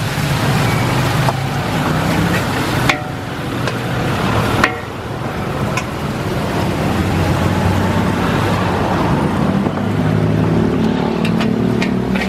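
Mee goreng noodles stir-frying in a large wok over a charcoal fire: steady sizzling and rushing noise, with the metal spatula scraping and knocking against the wok now and then.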